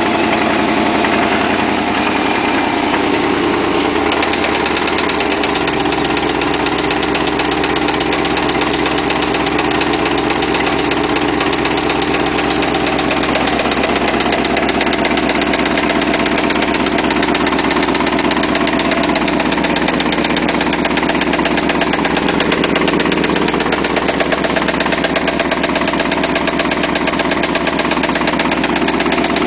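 1996 GM LT1 5.7-litre V8 running at a steady idle with a rapid, even knocking rhythm. The owner cannot say whether it is engine knock; the noise began after about ten miles of driving on the wrong knock sensors.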